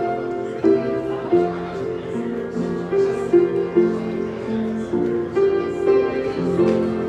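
Grand piano being played: a melody of held notes over chords, each note struck and left to ring.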